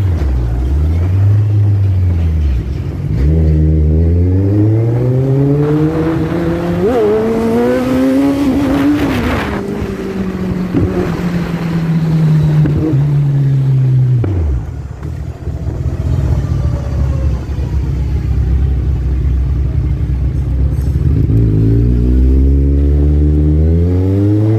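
Kawasaki Z1000's inline-four engine under way, rising in pitch for several seconds as it accelerates, then easing off and falling. It runs low and steady for a while and climbs again near the end.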